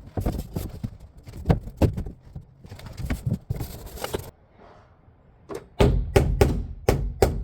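Hammer blows and knocks on wood. Irregular knocking at first, then a pause, then a quick even run of strikes, about three a second.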